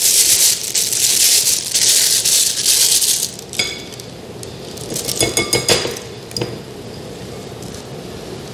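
A plastic piping bag crinkling as it is handled, then a whisk knocking against a glass bowl with several ringing clinks.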